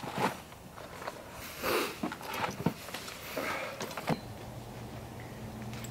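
Camping gear being handled during pack-up: a few scattered knocks and clicks with brushes of rustling. A low steady hum comes in about two-thirds of the way through.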